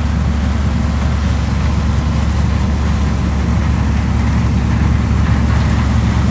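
Diesel engine of heavy harvest machinery running steadily, a low, even drone.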